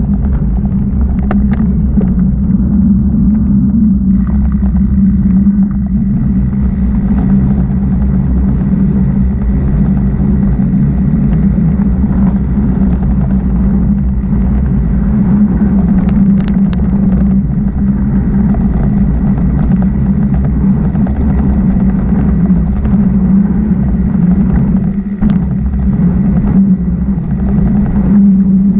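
Mountain bike ride noise: a loud, steady low rumble of wind and tyres on dirt singletrack, with a few sharp knocks from bumps along the way.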